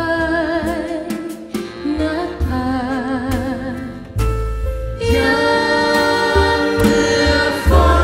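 A woman singing a slow ballad with vibrato, backed by a jazz band with saxophones and upright bass; about five seconds in the band swells to a fuller, louder sound.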